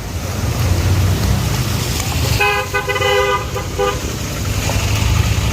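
Vehicle horn honking in about three quick toots, the first two longer, over the low rumble of a running vehicle engine.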